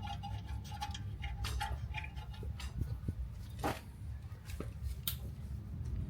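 Ratchet wrench clicking in short irregular runs as a brake bolt is tightened, over a steady low rumble.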